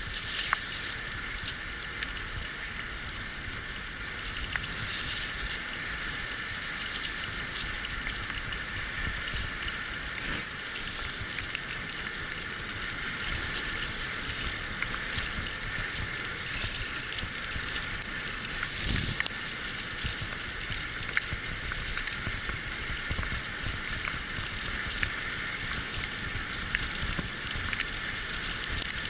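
Wheeled dog-racing rig rolling along a dirt forest trail behind a sled-dog team: a steady crunch of tyres on the track and rattle of the frame, with scattered small clicks and one heavier bump about two-thirds of the way through.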